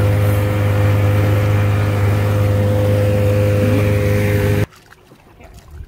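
1982 Evinrude 15 hp two-cylinder two-stroke outboard running steadily at constant throttle, pushing the inflatable boat. The engine sound cuts off abruptly about four and a half seconds in, giving way to faint, much quieter sounds.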